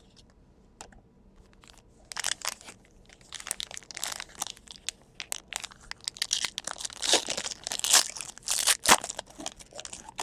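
Foil trading-card pack wrapper being torn open and crinkled in the hands, starting about two seconds in as irregular crackling that grows louder toward the end.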